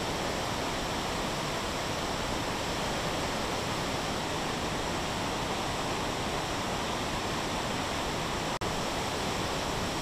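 Tortum Waterfall in full flood, fed by the overflowing Tortum Lake after spring snowmelt and rain: a steady, even rush of falling water that drops out for an instant about eight and a half seconds in.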